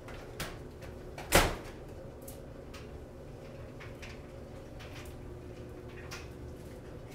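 Front-loading clothes dryer door pulled open with one sharp clack about a second and a half in, after a smaller click, then faint rustling of clothes being pulled out of the drum, over a low steady hum.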